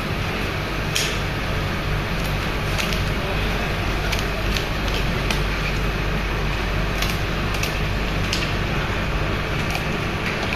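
A steady mechanical drone of room machinery with a constant low hum. Over it come a dozen or so short, sharp, irregular snips of kitchen shears cutting through a red snapper.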